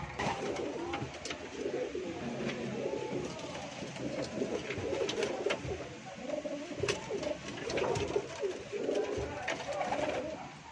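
Racing pigeons cooing: several birds' low, overlapping warbling calls, with a few sharp clicks among them.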